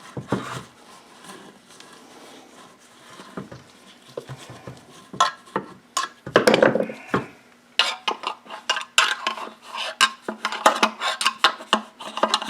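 Small engine parts being handled on a workbench: quiet shuffling at first, a heavier knock and slosh around six seconds in, then rapid rattling and clinking of hard plastic and metal from about eight seconds, as the mower's fuel tank and carburettor are worked to clear out solvent.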